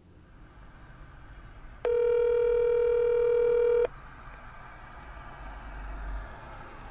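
Telephone ringback tone of an outgoing call: one steady ring about two seconds long, starting about two seconds in, over a low line hiss.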